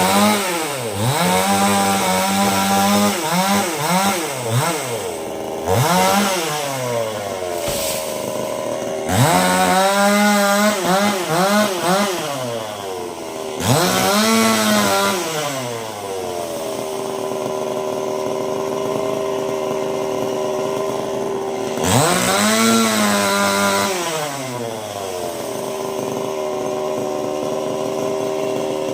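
Chainsaw engine revving up and dropping back again and again, settling to a steady idle between the bursts, with its longest idle just past the middle.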